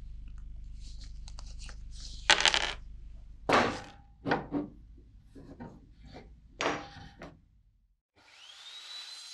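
Faint crackling of old leather handle pieces being worked in gloved hands, then several sharp knocks as ebony blocks are set down and shifted on a table saw's metal table. Near the end the table saw's motor starts and spins up to a steady whine.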